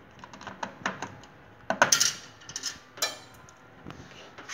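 Sharp plastic clicks and snaps from an LS moulded-case circuit breaker (MCCB) being handled at its front cover and operating handle. The loudest is a cluster just under two seconds in, with another about three seconds in.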